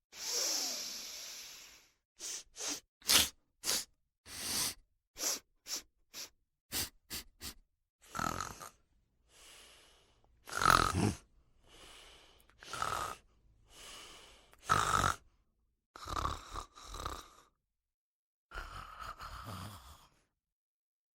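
A person snoring, one snore every second or two, after a quick run of short breath sounds.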